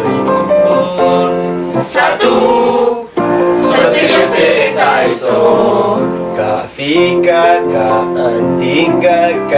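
A small group singing together in unison, with an electric keyboard accompanying; the singing breaks off briefly about three seconds in and again near seven seconds.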